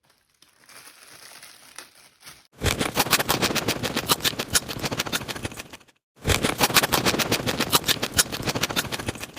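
Rapid crackling, crunching clicks, many to the second, in two stretches of about three seconds each with a brief break between them, after a faint hiss.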